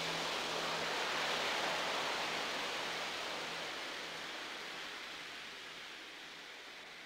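A steady wash of hiss-like noise closing an album track, fading out slowly. A faint low held tone sits under it and dies away near the end.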